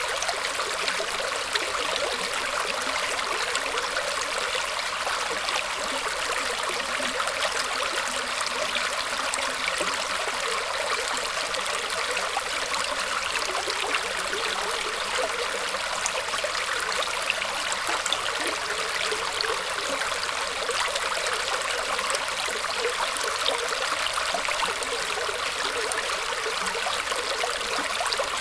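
Shallow stream water flowing and trickling steadily over roots, an even splashing rush with fine gurgling detail and no pauses.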